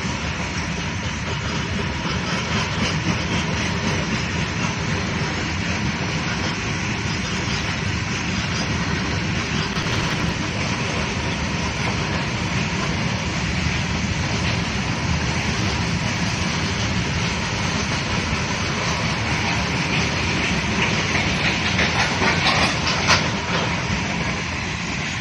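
Freight train of covered wagons rolling past: a steady rumble of steel wheels on the rails with clattering over the rail joints. A run of sharper clicks and knocks comes near the end.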